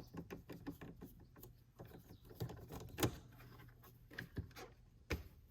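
Faint plastic clicks and taps from an iRobot Roomba robot vacuum being handled as a part is taken off it, with a sharper click about three seconds in and another near the end.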